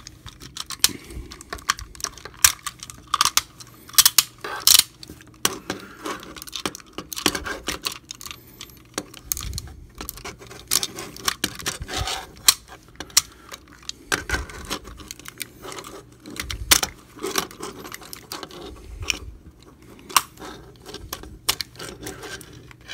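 Plastic parts of a leader-class Megatron Transformers action figure clicking and clacking as it is handled and transformed from tank to robot mode, many sharp clicks in quick, irregular succession.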